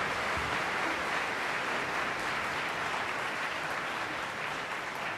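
Large theatre audience applauding steadily, easing off slightly near the end.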